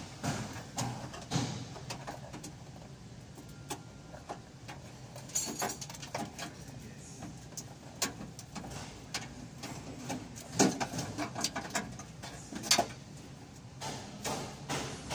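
Irregular short clicks and light knocks over a low steady background, with two louder knocks about ten and a half and thirteen seconds in.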